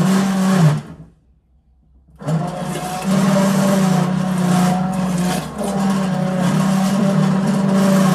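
Immersion (stick) blender running in a pot of cooked cranberries, pureeing them: a steady motor hum that stops about a second in and starts again about a second later.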